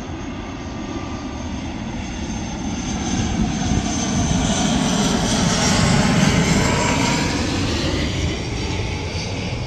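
ATR 72-500 twin-turboprop airliner on landing approach passing overhead. Its engine and propeller drone grows louder to a peak about six seconds in, then drops in pitch as it goes past and begins to fade.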